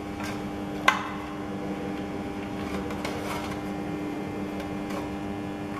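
Small clicks and taps of a screwdriver and wire leads being fastened to a terminal, with one sharp click about a second in, over a steady hum.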